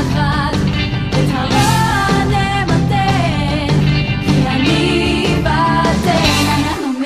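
A song sung in Hebrew: a solo voice singing a wavering melody over rock band accompaniment.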